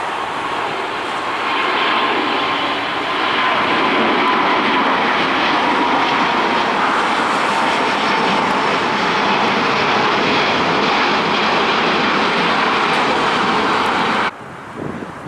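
Airbus A350's Rolls-Royce Trent XWB turbofans running at takeoff power as the airliner climbs out, a loud steady rush with a faint whine that slowly drops in pitch. The sound swells over the first few seconds and cuts off suddenly near the end.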